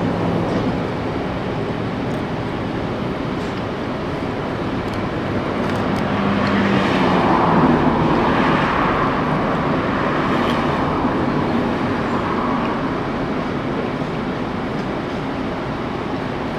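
Steady road traffic noise, swelling as a vehicle passes between about six and twelve seconds in, then easing back.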